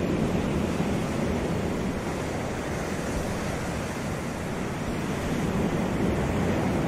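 Ocean surf breaking over shoreline rocks: a steady wash of waves that swells at the start and again near the end.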